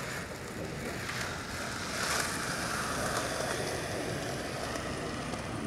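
Skateboard wheels rolling across a hard tennis-court surface: a steady rolling noise that grows a little louder about two seconds in.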